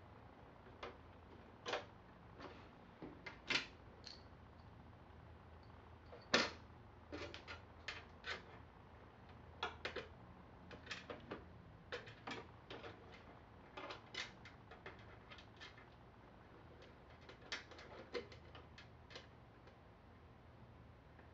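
Scattered light clicks and ticks of a small screwdriver and screws against the sheet-metal drive bay of a desktop computer case as a DVD drive is screwed in; the sharpest click comes about six seconds in.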